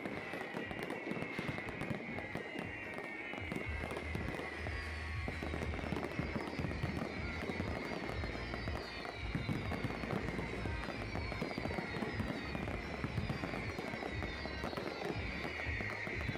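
Fireworks display going off: a dense, continuous crackle of many shells bursting, with a low rumble building from about four seconds in.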